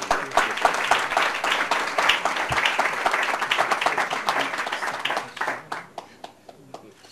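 Audience applauding: many hands clapping at once, thinning out to a few scattered claps near the end.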